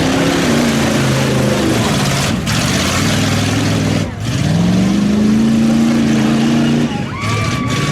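Big mud truck engine revving hard with a loud rush of noise; about four seconds in it drops off briefly, then climbs in pitch and holds high before letting off near the end.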